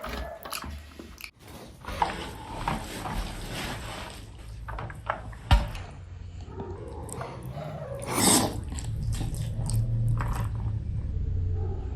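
Close-miked chewing and mouth sounds of eating egg curry with rice: scattered wet clicks and smacks, with a sharp click about five and a half seconds in and a louder, longer burst a little after eight seconds.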